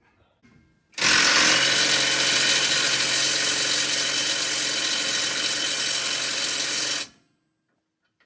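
A handheld power tool running steadily for about six seconds, starting and stopping abruptly as the trigger is pulled and released, while the track bar is being adjusted during the lift kit install.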